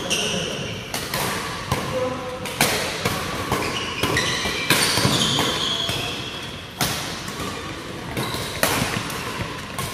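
Badminton doubles rally: sharp racket-on-shuttlecock hits every second or two, with court shoes squeaking on the floor and footsteps between shots.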